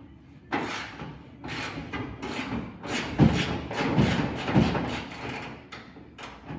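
A fender bolt on a K10 truck being worked loose with a hand wrench: a quick run of short metal strokes, with a few louder thumps about three to four and a half seconds in.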